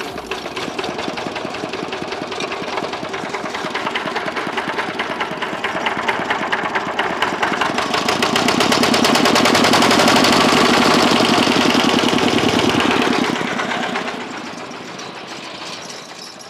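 Sugarcane-juice cart's stationary diesel engine being started by hand and running with a rapid, even knock. It gets louder and faster to a peak in the middle, then falls away near the end.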